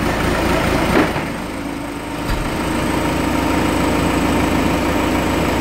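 Diesel engine of a Sandvik DS311 rig idling steadily, with a short knock about a second in and a low thump a little later.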